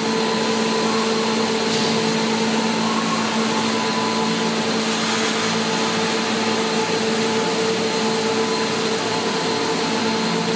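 Shot-blasting line running: a loud, steady machine noise with a low hum.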